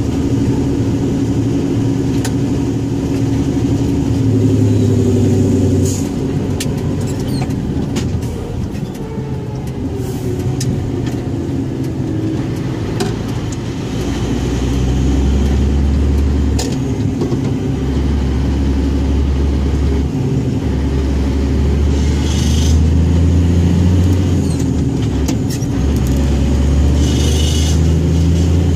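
Scania 114G 340 truck's six-cylinder diesel running, its note rising and falling and growing heavier about halfway through. Two short hisses come in the second half.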